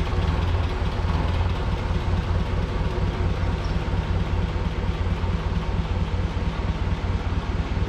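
Clark diesel forklift engine running steadily with an even low throb, with no change in pace.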